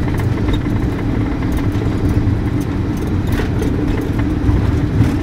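The DC-9-14's twin Pratt & Whitney JT8D turbofans running at takeoff power, heard from the flight deck during the takeoff roll as a loud, steady rumble with a steady hum. A few light knocks come through as the aircraft runs down the runway.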